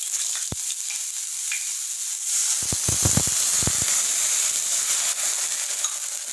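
Hot oil with mustard seeds and chopped dill leaves sizzling in a nonstick pan, with a few pops. About two and a half seconds in, water goes into the hot pan and the sizzle swells into a louder hiss with a rapid cluster of spluttering pops as it flashes to steam.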